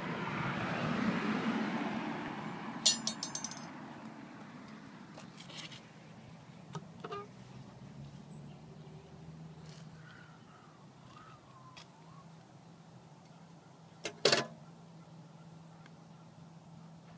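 Metal mailbox doors and lids being opened and handled: a quick metallic rattle about three seconds in, scattered light clicks, and a sharp double clack near the end, the loudest sound. A passing car swells and fades at the start.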